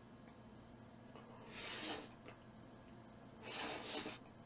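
Two short breathy puffs of air, each under a second and about two seconds apart, from a man eating with his mouth full.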